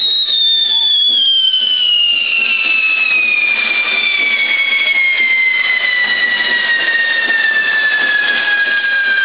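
Whistling fireworks on a toro de fuego burning: one long whistle falls steadily in pitch, and a second whistle rises briefly near the start.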